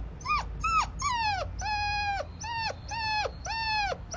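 A dog whining in a run of about seven short, high-pitched cries, each dropping in pitch at its end.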